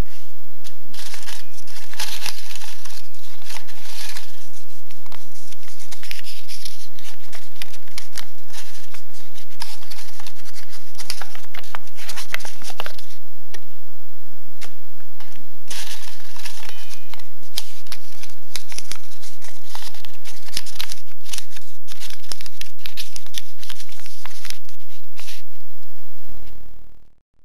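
Paper crinkling and rustling as it is handled and unfolded, in several bursts of crackle separated by short lulls.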